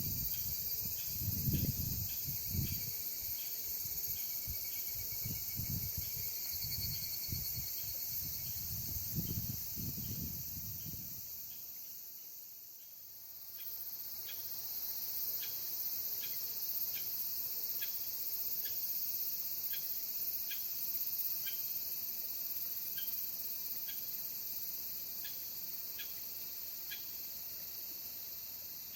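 Insect chorus of crickets and cicada-like singers, a steady shrill high-pitched buzzing. In the first part a low rumble sits under it; after a brief dip about halfway through, a regular short ticking call repeats about one and a half times a second.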